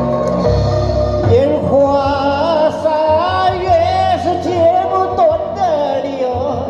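A man singing a Chinese pop ballad into a handheld microphone over backing music. His voice comes in about a second in with long, wavering held notes.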